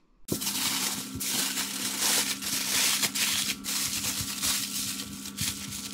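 Butter and juices sizzling and crackling around a whole fish as it cooks, a dense run of small pops over a steady hum, starting suddenly just after the start.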